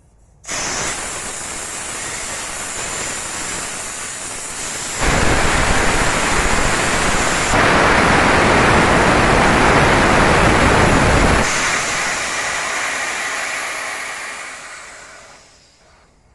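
Compressed air rushing out of a California Air Tools 8010's steel tank through its opened drain valve, a loud steady hiss that comes on suddenly, grows louder twice as the valve opens further, then dies away as the tank pressure runs down, blowing out the moisture collected in the tank.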